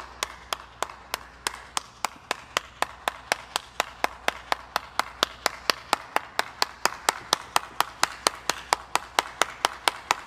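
One person clapping hands in a steady run of sharp, evenly spaced claps, about four to five a second.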